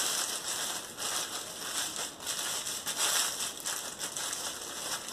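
Metallized plastic hair cap crinkling and rustling as it is pulled on and adjusted over the hair by hand, an uneven crackly rustle.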